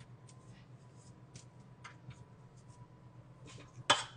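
Spatula scraping frosting off the sides of a stainless steel stand-mixer bowl: scattered light scrapes and ticks, then one sharp clank of the spatula against the metal near the end.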